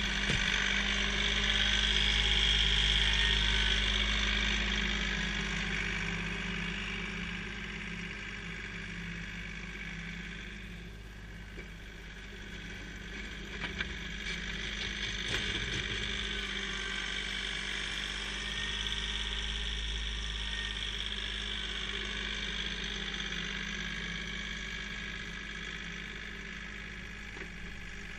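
Kioti CK3510 tractor's three-cylinder diesel engine running steadily while it pushes snow. It is loudest in the first few seconds, fades as the tractor moves off, swells again around the middle and fades toward the end.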